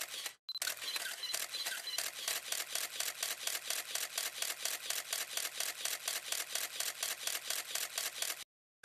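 A rapid, even run of sharp clicks, about six a second, like a camera shutter firing in burst, with a brief break just after the start and a sudden stop near the end.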